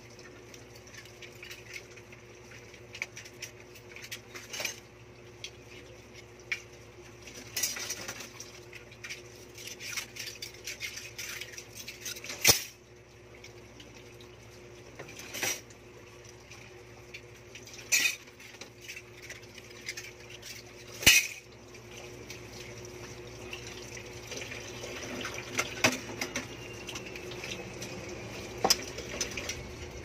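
Dishes and metal cutlery clinking and clattering as they are washed by hand in a stainless steel sink, with several sharp, louder clanks as pieces are knocked together or set down.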